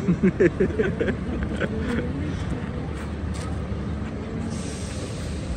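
Steady low rumble of an idling livestock truck's engine. A soft hiss starts near the end.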